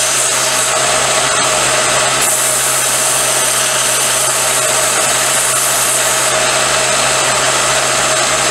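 Small vertical belt sander running steadily while a steel bolt piece is ground against the belt to take off burrs and a sharp edge: a constant grinding hiss over the motor's hum.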